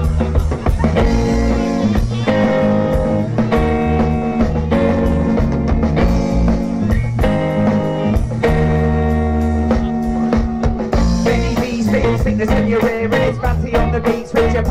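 Live band playing an instrumental passage: guitar chords over drums, changing every second or so.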